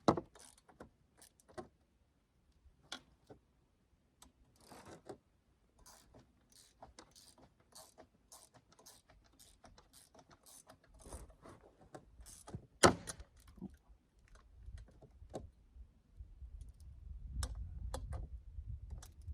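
Metal hand tools and small hardware clicking and clinking, irregularly, while the exhaust bolts on a chainsaw are worked on, with one sharp click about 13 s in. A low rumble builds over the last few seconds.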